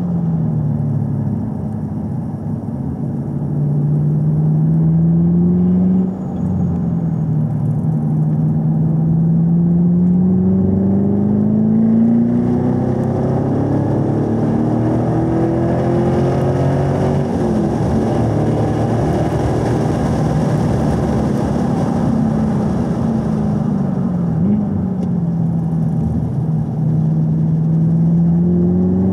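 2018 Camaro SS 1LE's 6.2-litre V8 heard from inside the cabin, pulling in third gear on track. The revs climb for much of the first half, with a brief lift about six seconds in, then fall away under braking and pick up again near the end.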